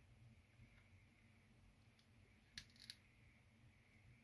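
A couple of quick small plastic clicks a little past halfway, from the shell of a Renault hands-free key card being handled and pressed together, over faint room hum.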